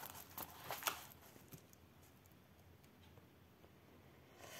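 Faint rustling and a few soft crinkles of a diamond-painting canvas and its clear plastic cover film being handled, in the first second or so.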